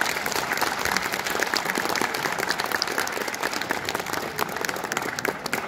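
Audience applauding at the end of a tune.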